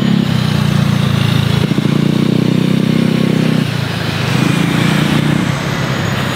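Road traffic: small motorbike engines passing close by, one after another, over a steady traffic hum.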